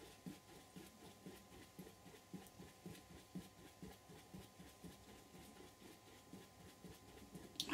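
Near silence: faint, irregular soft ticks and rustles of hands tilting a painted canvas, with one short knock near the end.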